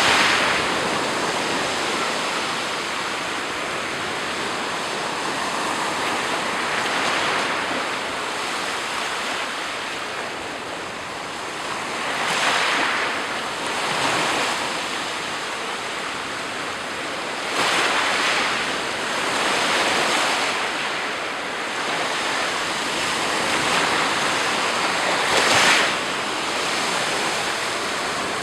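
Black Sea surf: waves breaking and washing on the shore, swelling and easing every few seconds, the loudest break near the end.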